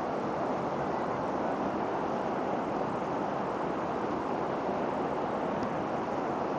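Rain falling steadily, an even rushing hiss with no breaks.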